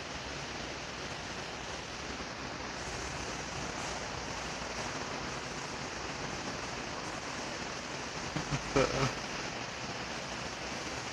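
National FMY159 industrial ceiling fan running, a steady rush of air. About eight seconds in, a brief louder sound cuts across it.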